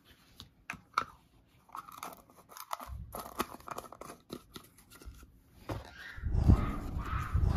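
Hands handling plastic paint jars and paper on a tabletop: scattered clicks and taps with scraping and rustling. Louder rubbing near the end as an arm brushes close to the microphone.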